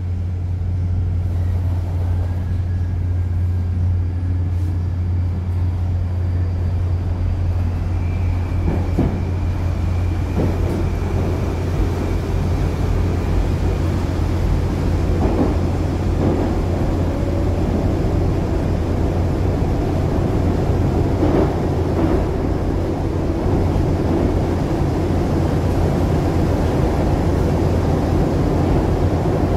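Moscow Metro train pulling away from a station and running into the tunnel, heard from inside the car: a steady low hum, with a faint motor whine and wheel and tunnel rumble building from about nine seconds in.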